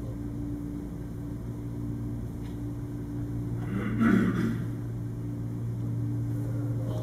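Steady low hum of room equipment, with a brief louder noise about four seconds in.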